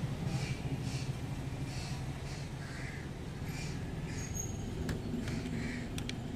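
Birds calling over and over against a low steady rumble, with a couple of sharp small clicks near the end as the die-cast model's tailgate is handled.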